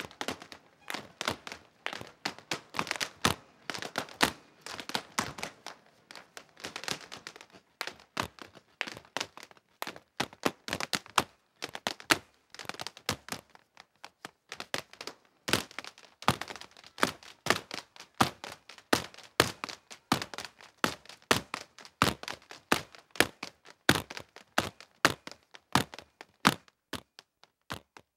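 Irish dancers' hard shoes striking the stage floor, a long run of sharp clicks and taps in quick rhythm with no music.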